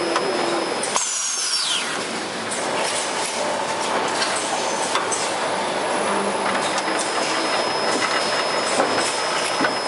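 Automatic carton palletizer running: steady mechanical noise with scattered clicks and rattles, and a brief high falling whine about a second in.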